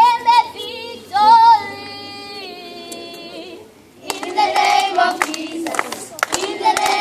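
Children's choir singing: a lead voice holds one long note that fades, then about four seconds in the group sings together with hand claps.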